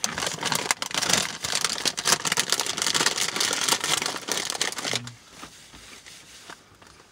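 Lay's Wavy potato chip bag crinkling and rustling as a hand digs into it for another chip. The crinkling is loud for about five seconds, then drops to a few faint rustles.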